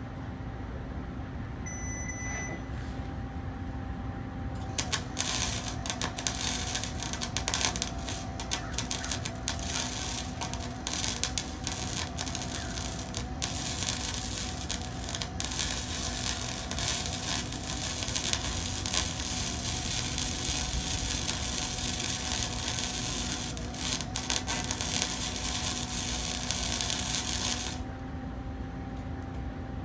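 Flux-core wire welder running .030 wire: the arc crackles and spits steadily for about 23 seconds, starting about five seconds in and cutting off near the end, over a steady hum.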